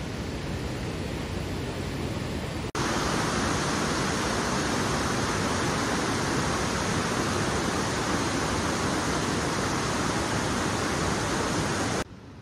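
Steady rushing of running water. It gets louder abruptly about three seconds in and drops off sharply just before the end.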